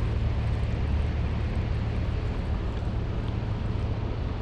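Steady low engine rumble of construction machinery running, with an even hiss over it.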